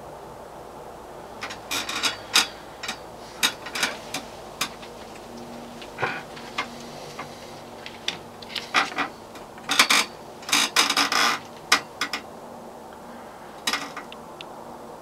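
Irregular short clicks and rustles close to the microphone, a couple of dozen of them, bunched most tightly and loudest a little past the middle, over a steady low hiss.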